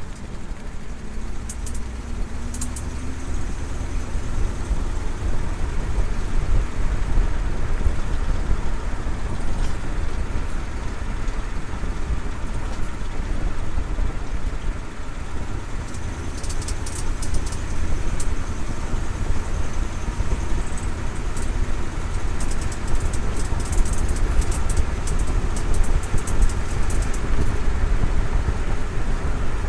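1956 Oldsmobile Super 88's V8 and road noise while accelerating at low speed, with bursts of quick tapping or ticking a couple of seconds in, around the middle and again near the end. The tapping is the intermittent noise the owner is trying to diagnose, heard only on the gas in second or third gear.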